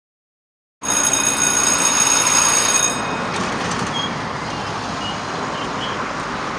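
Roadside traffic noise: a steady rush of passing vehicles that starts abruptly about a second in, with a high whine over it for the first two seconds.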